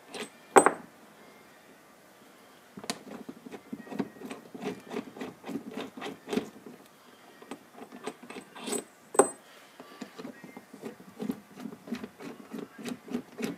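Hand wrench turning bolts out of an aluminium-bodied Nissan 300ZX (Z32) brake caliper: a long run of short metal ticks and scrapes, with a few sharper metal knocks, the loudest about half a second in and again near the middle.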